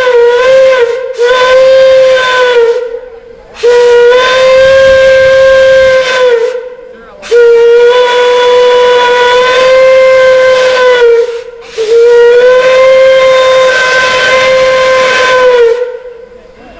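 Steam whistle blowing a series of long blasts on one steady note, with short breaks between them; the pitch sags slightly as each blast ends.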